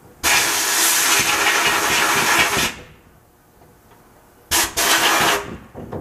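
Abrasive blast cabinet gun blasting the metal bottom cover of a power door lock actuator: a loud rushing hiss of air and grit for about two and a half seconds, then after a pause a shorter burst near the end.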